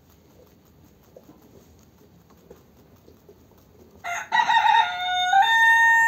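Faint nibbling of a rabbit chewing grass stems, then, about four seconds in, a rooster crows loudly: one long call that steps up in pitch midway.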